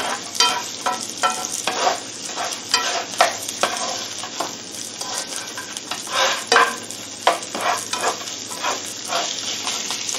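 Sliced onion and minced garlic sizzling in hot oil in a nonstick frying pan. A spatula stirs and scrapes across the pan in repeated short strokes.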